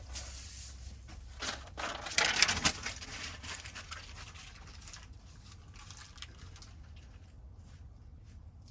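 Rustling and crinkling of a sheet of sound-deadening material being handled, loudest about two to three seconds in, then fainter rustles.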